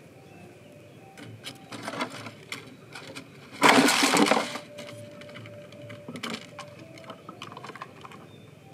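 Homemade plastic-bottle bird trap snapping shut: light tapping and rustling against the plastic, then about three and a half seconds in a loud clatter lasting about a second as the cardboard lid closes and the parakeet scrabbles inside the bottle. A few lighter taps follow as the trapped bird moves against the plastic.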